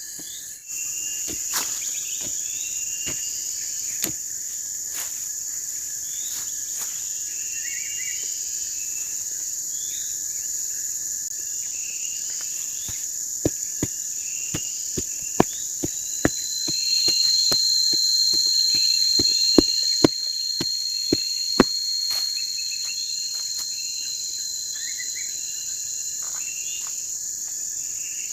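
A night chorus of insects, crickets among them, with a steady high chirring and short chirps repeating. About sixteen seconds in, a louder, higher single-pitched trill joins and fades out after about seven seconds. Scattered sharp ticks sound through it.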